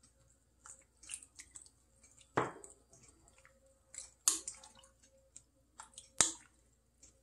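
A wooden spoon stirring soup in a stainless steel pot: soft sloshing of liquid with scattered clicks and knocks of the spoon against the pot, the sharpest near the end.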